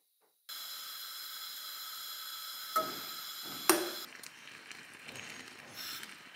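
Tea boiling hard in a glass kettle on a gas burner: a steady hiss starts suddenly about half a second in, with two sharp clinks from the glass kettle about three and four seconds in. After the clinks the hiss drops to a softer, uneven bubbling.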